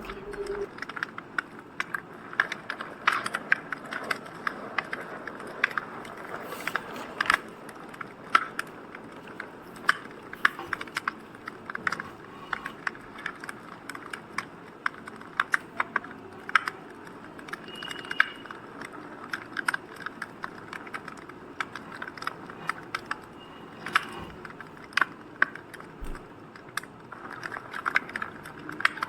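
Crackling fire: irregular snaps and pops of varying loudness over a soft steady hiss.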